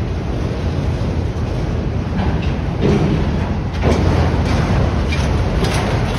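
Freight train's autorack cars rolling past: a steady low rumble of steel wheels on rail, with several sharp knocks from about two seconds in.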